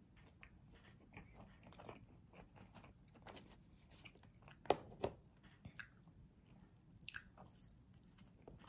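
A person chewing food close to the microphone, with faint wet mouth sounds and small crunches, and two sharper crunching bites about five seconds in.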